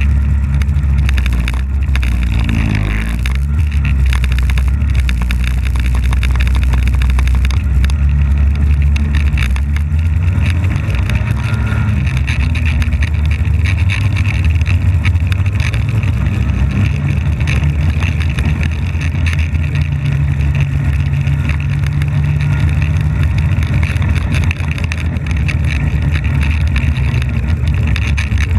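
Polaris snowmobile engine running under way at steady speed. The engine pitch drops and climbs again a few seconds in, then settles at a new steady pitch.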